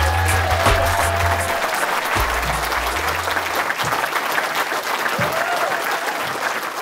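Theatre audience applauding, a dense steady patter of many hands clapping. Music with a low bass plays under it at first and fades out about three seconds in.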